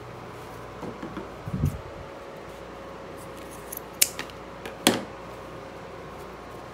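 Scissors snipping twice, about a second apart, cutting through the tag strap on a bundle of terry towels. Softer rustles and thumps of the towels being handled come before the snips.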